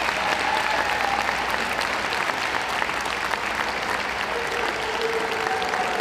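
Audience applauding, a steady dense clatter of many hands clapping.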